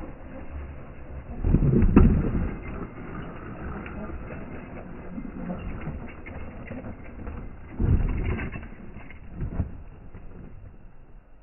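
RC monster truck crashing and tumbling on a gravel path: heavy thuds and gravel crunch about a second and a half in, then two more knocking tumbles near the end as it rolls onto its roof.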